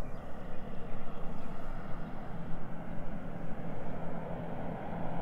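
Engine drone of an agricultural seeding airplane approaching low over the field to drop rice seed, a steady low hum that grows stronger partway through.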